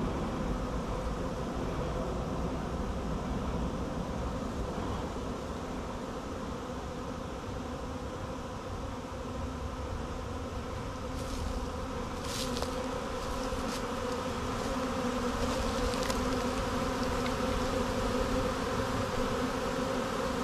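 Honeybee swarm buzzing steadily, a hum of many bees as the swarm is going into a hive box. A few faint clicks come in near the middle.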